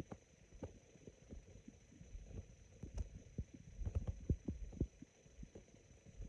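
Human stomach gurgling: a run of short, irregular low pops and gurgles, thickest about four to five seconds in.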